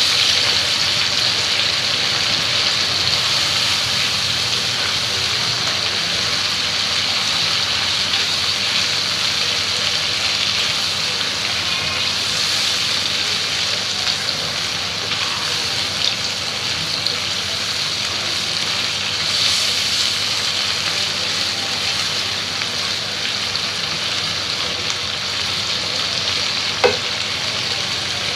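Parboiled cauliflower, carrot and long beans sizzling steadily in hot oil in a frying pan, easing slightly over time, with a few light clicks near the end.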